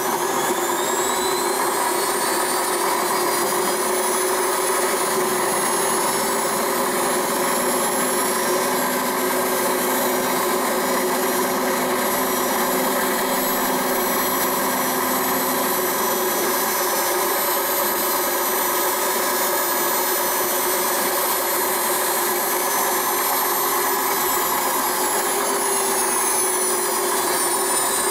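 A homemade lathe running: its electric motor spins up with a rising whine over the first few seconds, then runs steadily with the chuck turning. The tool meanwhile takes a light cut of two tenths of a millimetre off a small metal rod. The pitch sags slightly near the end.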